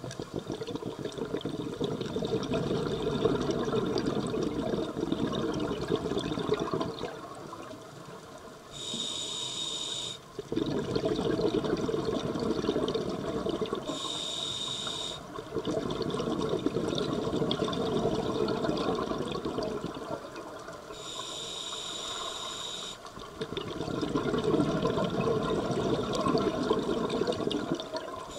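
Scuba diver breathing through a regulator underwater: short hissing inhalations with a high whistle, each followed by several seconds of rumbling exhaust bubbles, about four breaths in all.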